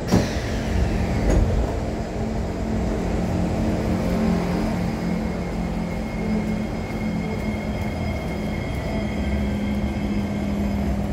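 Kawasaki C151 MRT train standing at a platform: a sudden clunk with a falling whine as the doors open right at the start, then the train's steady electrical hum.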